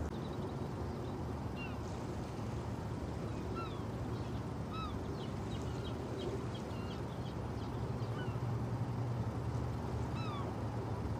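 Gulls giving short calls every second or so over a low steady rumble.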